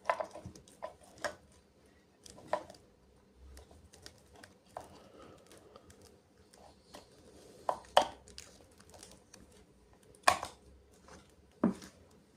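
Scattered clicks, taps and light knocks from objects being handled, typical of unpacking a toy from its packaging. The loudest knocks come about 8, 10 and 11.5 seconds in.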